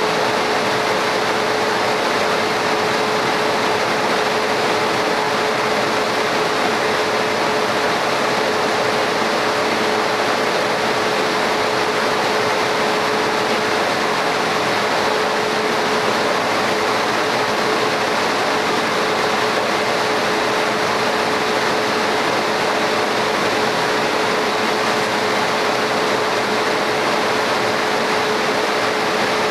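Laser cutter running while it engraves stone tile: a steady air-blower hiss, fan or air-assist, with one steady mid-pitched tone on top.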